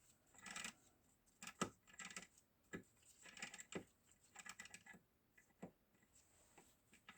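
Small metal gearbox parts being handled and fitted together by hand: a run of light clicks and clinks, the sharpest about a second and a half in, dying away after about six seconds.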